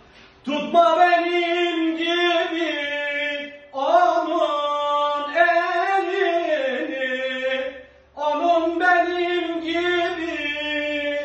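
A man singing a Turkish song unaccompanied, in three long, wavering held phrases with short breaths between them.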